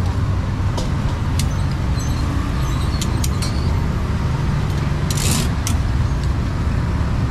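Street traffic: a steady low rumble of passing vehicle engines, with scattered short clicks and a brief hiss about five seconds in.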